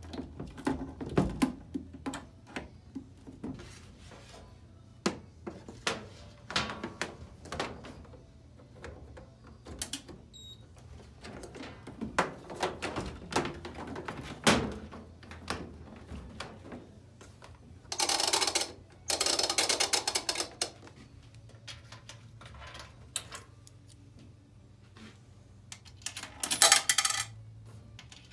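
Scattered clicks, knocks and rattles of a sheet-metal coin-op timer box being handled on the wall and power plugs being pushed into it, with two longer scraping stretches about two-thirds of the way through. Near the end, a coin rattles down through the box's coin acceptor, which registers a credit.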